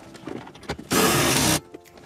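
Tool-handling noise in a car's centre console: a few small clicks, then one loud scraping rub about a second in that lasts well under a second.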